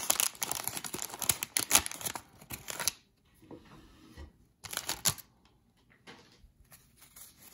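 Paper wrapper of a 1983 Donruss baseball card pack crinkling and tearing as it is peeled open. It stops about three seconds in, giving way to faint rustles as the cards are slid out, with one more short crinkle about five seconds in.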